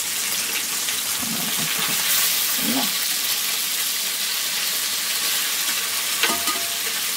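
Masala-coated anchovies (nethili) sizzling steadily as they shallow-fry in oil in a wide pan, turning crisp, while a flat spatula turns them over. A single sharp tap comes about six seconds in.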